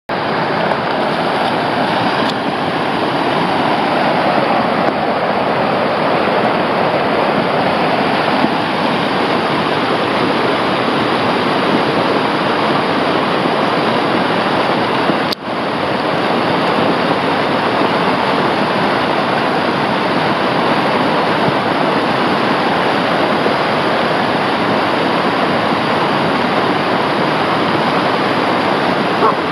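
Muddy flash-flood water rushing steadily down a rocky desert wash at the start of a flash flood, with a brief break in the sound about halfway through.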